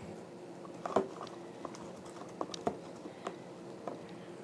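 Floam (slime mixed with small foam beads) being squeezed and folded by hand, giving irregular small crackles and sticky clicks, the loudest about a second in.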